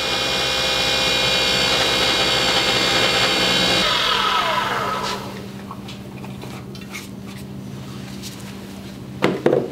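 Small wood lathe running steadily with a bottle stopper on the spindle, then switched off about four seconds in, its whine falling in pitch as it spins down. A quieter steady hum remains, with a brief handling sound near the end.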